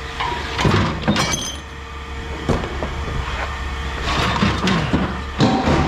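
Scrap metal clanking and clattering as pieces are handled and dropped, a few separate knocks, one with a brief metallic ring about a second in, over a steady engine rumble.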